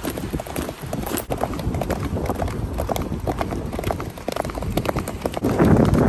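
An Arabian horse's hooves clip-clopping, striking the ground in a quick, uneven rhythm. Near the end, a louder rush of wind on the microphone comes in over the hoofbeats.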